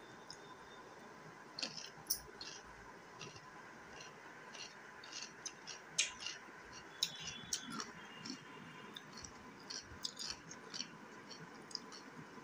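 A person chewing raw cucumber slices: quiet, irregular crisp crunches and mouth clicks.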